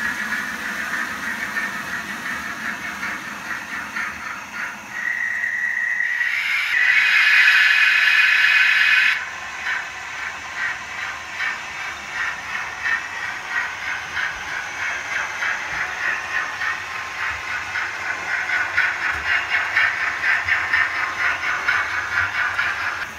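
OO gauge model trains running on the layout: a steady motor whirr and rapid clicking of wheels over the track. About five seconds in, a steady high tone sounds, followed by a louder hissing that lasts about two and a half seconds before the running clatter returns.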